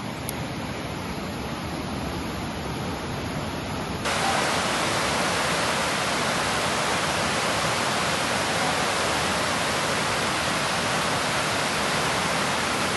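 Rushing whitewater of river rapids: a steady, even rush of water that becomes louder about four seconds in.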